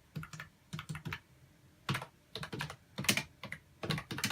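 Keys of a new Logitech wireless keyboard being pressed, with irregular clicky taps in small groups of two or three, a few each second.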